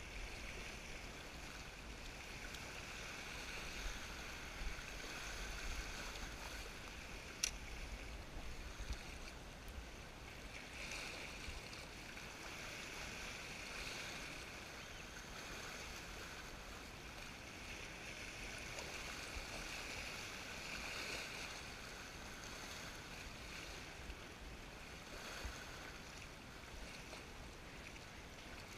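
Sea water washing and lapping against shoreline rocks, with wind rumbling on the microphone. A single sharp click comes about seven and a half seconds in.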